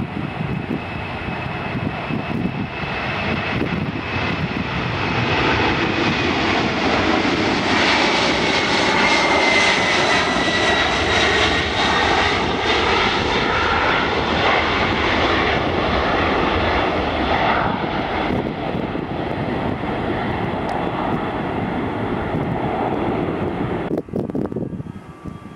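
Boeing 747-400's four turbofan engines at takeoff power, a jet roar that builds as it rolls and lifts off. A high whine falls in pitch as it goes past, and the sound drops away suddenly near the end.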